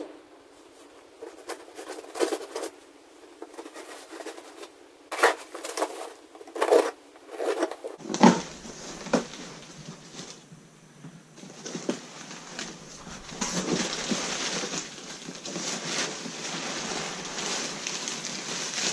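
A taped cardboard box being opened: scattered sharp rips and cuts of the packing tape and cardboard. About eight seconds in these give way to steady rustling and crinkling of crumpled newspaper packing as hands dig through it.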